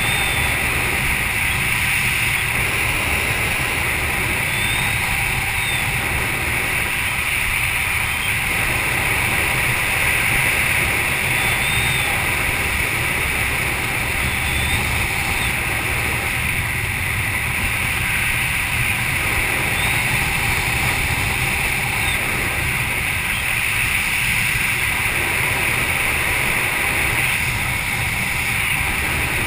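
Steady wind rushing over a GoPro camera during parachute canopy flight, an unbroken hiss with a low rumble underneath.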